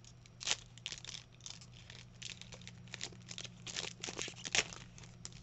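Foil Pokémon booster pack wrapper crinkling and tearing as it is opened by hand, an irregular run of crackles with louder snaps about half a second in and again near the end, over a steady low hum.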